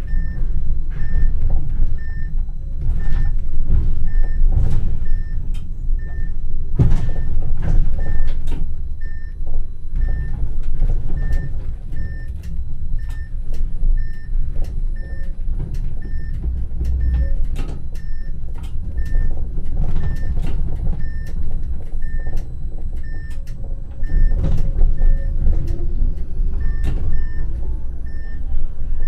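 Vario low-floor tram running over rails, heard from the driver's cab: a heavy low rumble with sharp clicks and knocks from the wheels over rail joints and points. A short high beep repeats about every 0.6 s and stops near the end.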